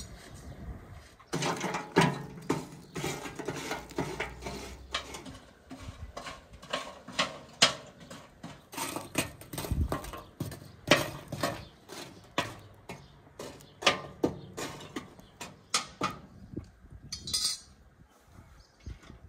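Hollow pressed charcoal briquettes being shifted in a steel grill box with metal tongs: a rapid, irregular run of clinks and knocks of charcoal against charcoal and metal, thinning out near the end.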